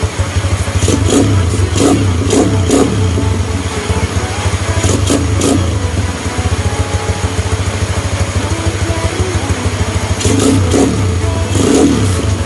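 Motorcycle engine of a Motorstar MSX 150X running through an FMF Powercore 4 aftermarket exhaust, idling with a steady low pulse. The throttle is blipped in short revs a second or two in, around five seconds in, and again near the end.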